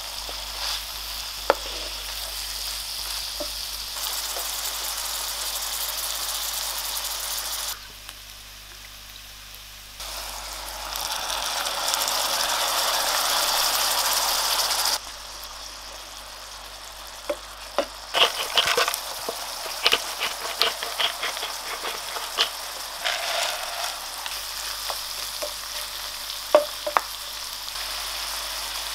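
Sliced champignon mushrooms and onion sizzling in butter and oil in a frying pan. The sizzle swells louder around the middle, and in the second half a wooden spoon knocks and scrapes against the pan in quick irregular clicks as the mushrooms are stirred.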